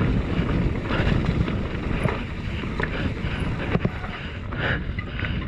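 Wind buffeting the microphone of a bike-mounted camera on a mountain bike riding fast down a dirt singletrack, with the rumble of tyres on the trail and the bike rattling over the ground. A couple of sharp knocks about three and four seconds in.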